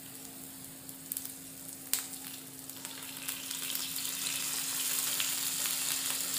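Sliced onion, green chilli and capsicum sizzling in hot oil in a non-stick frying pan. The sizzle grows louder from about three seconds in as a tablespoon of soy sauce hits the pan. There is a sharp click about two seconds in.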